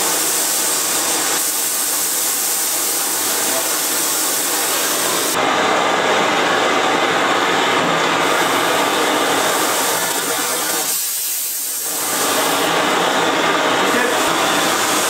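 Hose-fed gas torch burning with a steady hiss as its flame heats a dented steel exhaust expansion chamber, dipping briefly about eleven seconds in.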